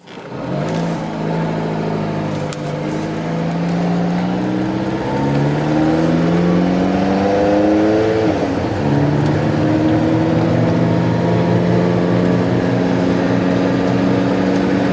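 Alfa Romeo 4C's turbocharged 1.75-litre four-cylinder engine pulling away. Its pitch rises steadily for about eight seconds, drops suddenly at a gear change, then holds steady at a cruise.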